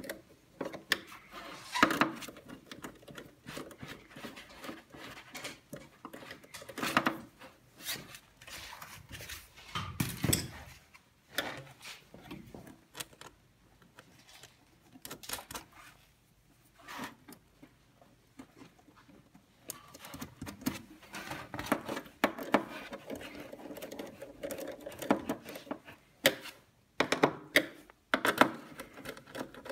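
Small nuts being threaded by hand onto the standoffs of a display circuit board: irregular light clicks, taps and handling knocks, with a few sharper knocks several times.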